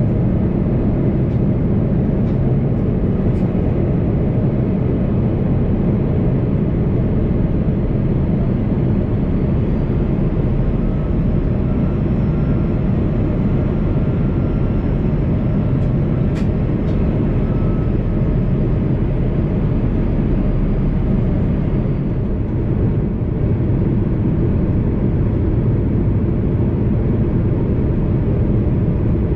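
Airbus A330-200 airliner's engine and airflow noise: a steady low rumble, with a faint high whine that swells and fades about halfway through.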